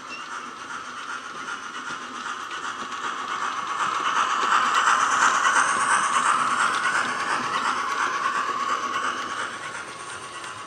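Model steam locomotive's DCC sound decoder (Wheeltappers V2 sound on a LokSound 5) playing steam running sounds through its small built-in speaker, along with the rattle of the model's wheels on the track. It grows louder as the locomotive passes, then fades as the coaches follow.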